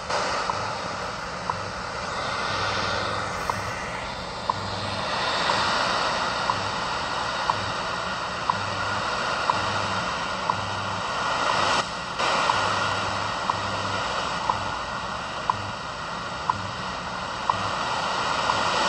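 Portable shortwave receiver tuned to the WWV time-signal station on 15 MHz: a short tick every second over steady shortwave static that swells and fades. Beneath it a low 100 Hz buzz pulses on and off in blocks of different lengths, which is WWV's time code. The signal briefly drops out about twelve seconds in.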